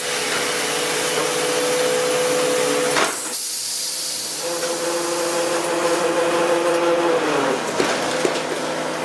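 Sawmill log haul chain conveyor running as it drags a log up out of the log pond: a steady mechanical whine over a broad hiss. The whine drops out for a second or so about three seconds in, and falls in pitch about seven and a half seconds in.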